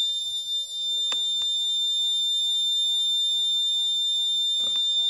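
Electronic alarm buzzer sounding one continuous high-pitched tone, the kit's alert that a high-impact accident has been detected. A few faint clicks come about a second in and again near the end.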